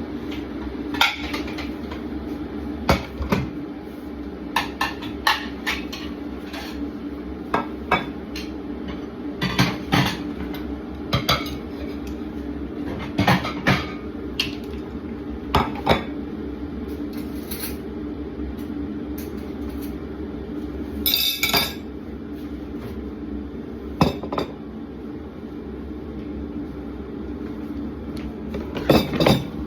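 Dishes being put away from a draining rack: scattered clinks and knocks of crockery, pans and glassware, about a dozen in all, with a brief rattle a little past the middle. A steady hum runs underneath.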